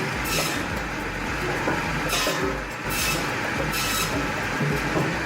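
Drum-fed log-cutting machine running: a steady low hum with a rasping hiss that comes back about once a second as its cutter works through the wood.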